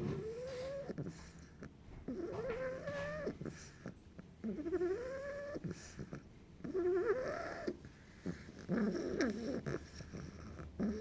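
Bulldog puppy snoring in its sleep. There are five pitched, whistly snores about two seconds apart, each lasting around a second and mostly rising in pitch, with quieter breathing between them.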